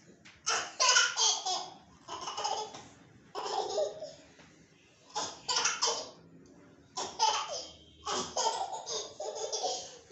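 A toddler laughing in about six separate bursts of a second or so each, with short quiet gaps between them.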